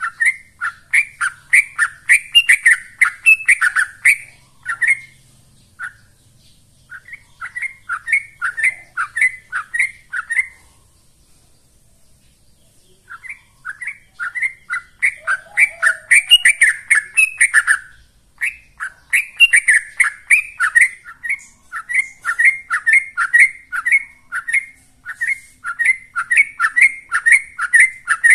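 Yellow-vented bulbul (trucukan) singing its rapid 'ropel' song: long runs of short, chattering notes, about three a second, broken by a brief pause about 5 s in and a longer one from about 10 to 13 s in.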